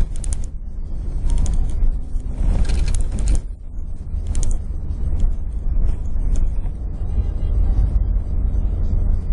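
Vehicle driving fast over a rough sand track, heard from inside the cab: a steady low rumble of engine and road, broken by several short bursts of rattling and clatter as it goes over bumps, the longest about two and a half seconds in.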